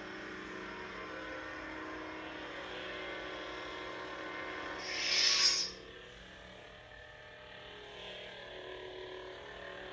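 Replica lightsabers humming steadily through their hilt speakers. About five seconds in there is a short hissing retraction sound as one blade shuts off, and the hum is quieter after it.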